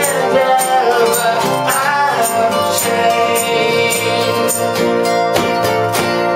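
A band playing a song, with singing over guitar and a steady percussion beat of about two strikes a second. The beat stops near the end, leaving the guitar ringing on.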